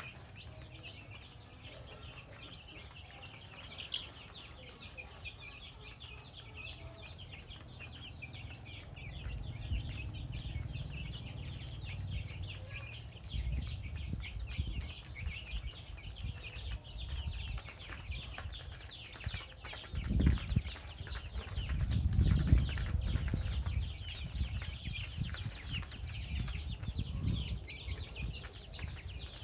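A flock of baby chicks and ducklings peeping constantly, a dense chorus of short high chirps. Low rumbling builds from about a third of the way in, with the loudest bursts about two thirds of the way through.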